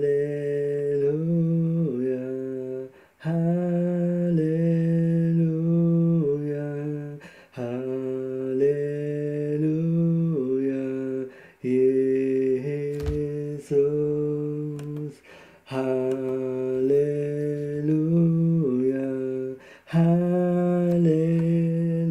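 A man humming an unaccompanied, slow worship melody in phrases of about four seconds, pausing briefly between them for breath.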